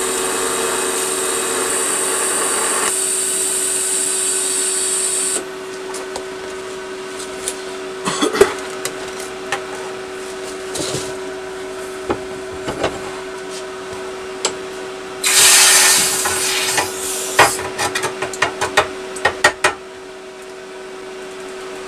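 Welding on a steel exhaust baffle: a steady hiss and buzz that cuts off about five seconds in, over a steady machine hum. Then light metal clinks and taps follow, with a short loud hiss in the middle and a run of quick clicks near the end.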